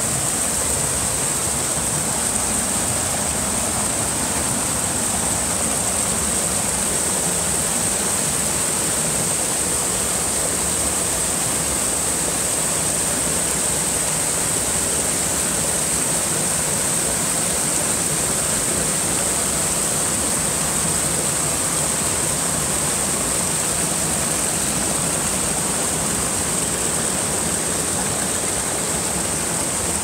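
A small stream rushing and splashing over boulders in a series of little cascades: a steady, even rush of falling water.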